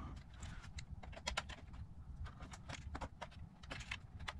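Faint, irregular small clicks and ticks of a screwdriver working a wire into a power supply's screw terminal, with the wire and tool being handled.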